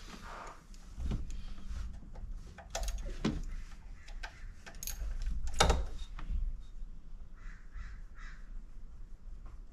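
Hand tools clinking and knocking against metal while bolts are worked loose on a BMW E46 engine's VANOS unit, in a few separate sharp clicks with the loudest about two-thirds of the way in. Three short rasping calls come near the end.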